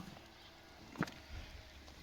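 Horse hooves clip-clopping, with a sharp strike right at the start and another about a second in.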